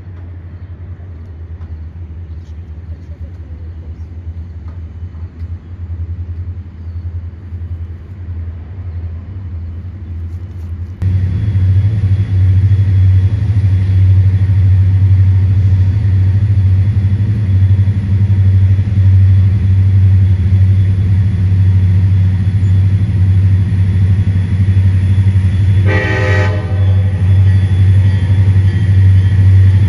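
Approaching freight train's diesel locomotive: a steady low engine rumble that jumps much louder about a third of the way in, with one short horn blast a few seconds before the end.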